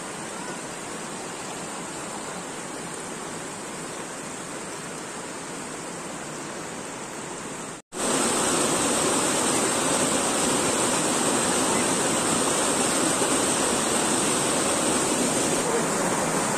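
Steady rushing of stream water flowing over rocks. It cuts out for an instant just before eight seconds in and comes back louder.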